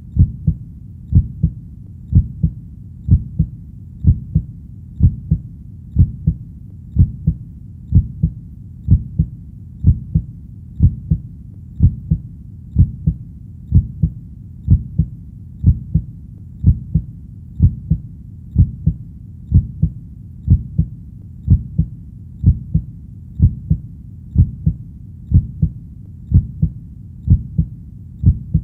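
Human heartbeat, a steady lub-dub of paired low thumps at about one beat a second over a faint even hiss.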